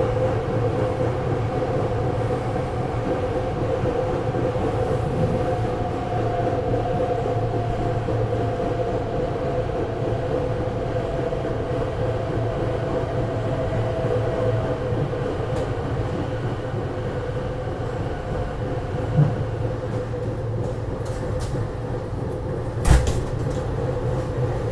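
SEPTA regional rail train heard from inside the passenger car while it runs: a steady rumble and hum of the wheels and running gear, with a faint higher whine through the middle. A single sharp knock sounds near the end.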